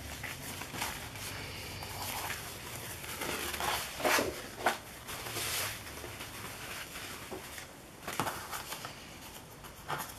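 Thin printed paper napkins rustling as they are handled and slid across a tabletop: several short rustles, the loudest about four seconds in.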